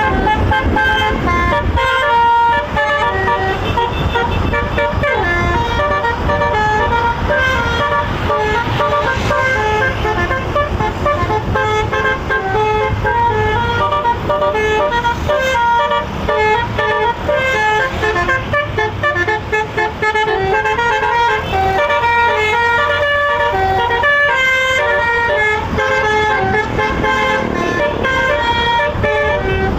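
Six-note telolet bus horn (basuri) playing a quick tune of stepping notes, over a steady low engine noise.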